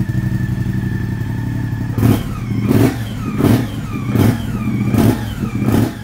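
Moto Guzzi V100 Stelvio's 1042 cc V-twin running through a Mistral Avion X aftermarket silencer. It idles steadily, then from about two seconds in it is blipped six times in quick succession, the revs rising sharply and falling back after each blip.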